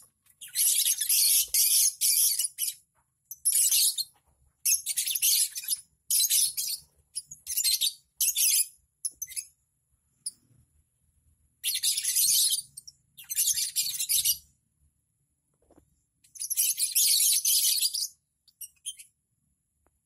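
Lovebirds chattering: shrill, scratchy high-pitched bursts of half a second to two seconds each, about ten of them in a row with short quiet gaps between.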